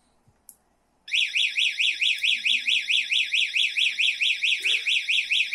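Coban 303G GPS tracker's alarm siren going off about a second in, a loud high-pitched fast warble of about five up-and-down sweeps a second, after a light click. The armed alarm has been triggered by the motorcycle's ignition line being switched on.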